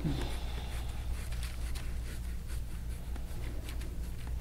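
Faint scratchy rubbing of massage work on skin, with light scattered ticks, over a steady low hum.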